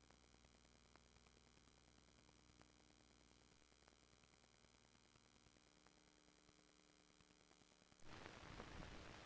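Near silence: faint steady hum and hiss from the recording, with a few tiny clicks, stepping up to a louder crackly hiss about eight seconds in.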